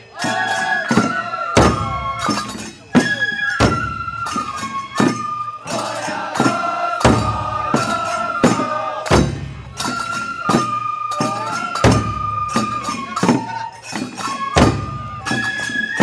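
Festival hayashi music: bamboo transverse flutes play a high, stepping melody over repeated taiko drum strikes.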